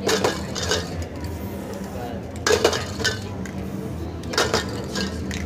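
Metal spray-paint cans clinking and rattling in several short bursts of clicks, over a low steady hum.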